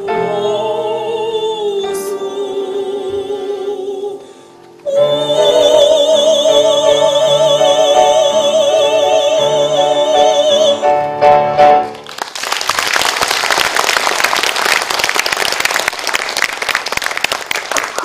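Female vocal trio singing in harmony over accordion chords, closing on a long, loud held chord with vibrato. The music stops about twelve seconds in and the audience bursts into applause.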